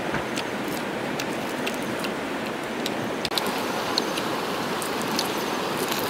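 Steady outdoor hiss with scattered light clicks and crunches from fried crickets being chewed and picked out of a woven basket.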